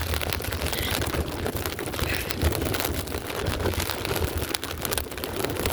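Heavy rain falling steadily, with many sharp ticks of drops and a low rumble of wind buffeting the phone's microphone.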